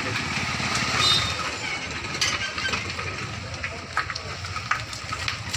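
A motor vehicle engine running steadily close by, a low rumble under voices, with a few sharp clicks about two and four seconds in.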